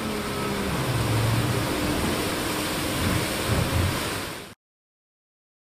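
Wind on the microphone and sea rushing past the hull of an IMOCA 60 racing yacht under sail in rough water, with a low hum coming and going beneath it; the sound fades out about four and a half seconds in.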